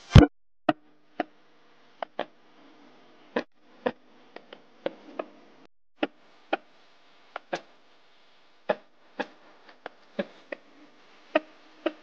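A loud thump at the very start, then irregular sharp knocks and clicks, about two a second, over a faint steady hum.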